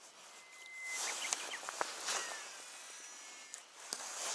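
Shimano Calcutta Conquest DC 200 baitcasting reel on a cast: the spool and its DC brake give a thin whine over a hiss as the line pays out, with a few sharp clicks from the reel.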